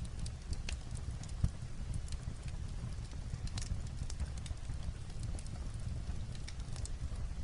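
Fireplace crackling with irregular sharp pops, one louder pop about a second and a half in, over the steady low rumble of light rain on a roof.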